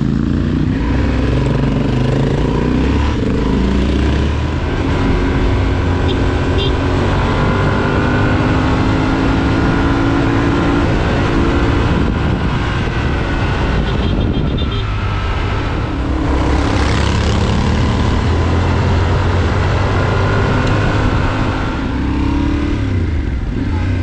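Adventure motorcycle engine running under way on an off-road gravel track, its note rising and falling several times with the throttle.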